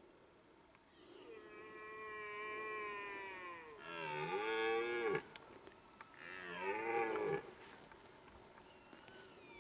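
Red deer stag roaring: one long, drawn-out roar, then two shorter, louder roars.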